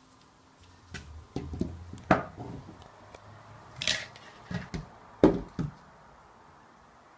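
Parts of a pet bowl stand, its legs and cross-shaped frame, being handled and set down on a wooden table: scattered knocks and clacks over about five seconds, the loudest about two and five seconds in.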